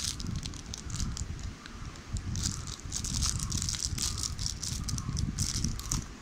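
Clear plastic wrapping around a pair of spike running shoes crinkling in irregular bursts as it is handled.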